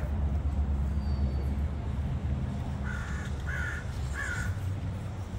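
A crow cawing three times in quick succession, about three seconds in, over a steady low rumble.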